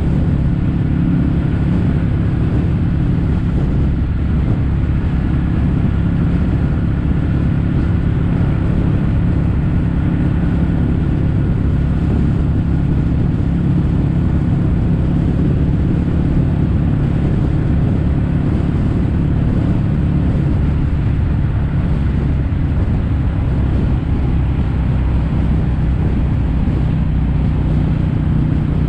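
Kawasaki W800's air-cooled parallel-twin engine running through aftermarket Yamato stainless steel Caburton-style silencers, a steady low exhaust note held at an even engine speed while riding.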